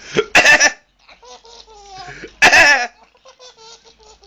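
A man coughs twice, about two seconds apart. Each cough sets off a baby's giggling laugh, a run of quick, rhythmic high-pitched 'heh-heh' bursts.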